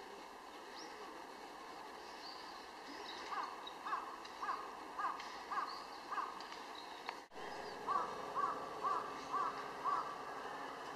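A crow cawing in two runs of repeated caws, about two a second: six, then after a brief dropout five more. Faint, higher bird chirps sound throughout.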